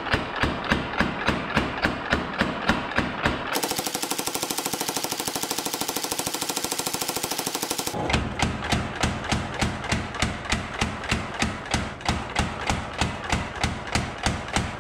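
Power hammer pounding a red-hot steel blade between its dies in a steady run of about four blows a second. For a few seconds in the middle the blows come much faster and brighter, as an even rapid rattle, before the slower steady pounding resumes.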